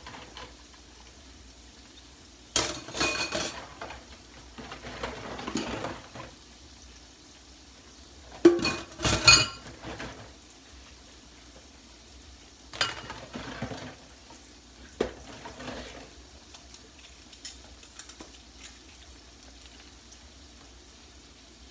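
Dishes and cutlery clattering and clinking as they are washed by hand, in short spells every few seconds, the loudest about nine seconds in.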